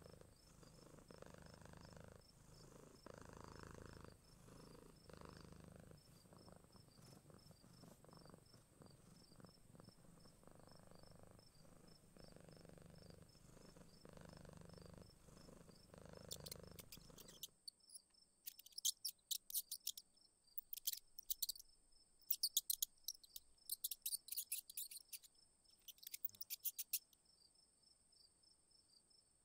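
Cat purring, a low pulsing rumble, for about the first seventeen seconds. It then stops suddenly, and insects take over, chirping in loud trilling bursts over a faint steady high background.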